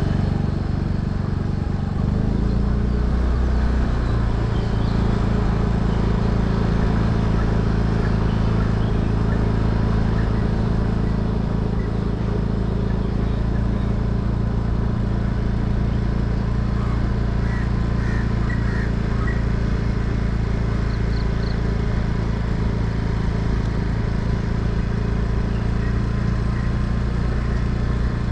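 Motor vehicle's engine running at a steady cruise, a constant low hum with road noise that settles in about two seconds in and holds unchanged.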